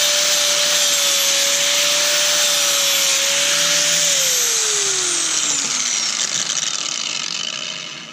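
Angle grinder with a flap disc grinding the edge of a steel lawn mower blade: a steady high whine over a loud grinding hiss. About four seconds in it is switched off and winds down, its whine falling in pitch until it dies away near the end.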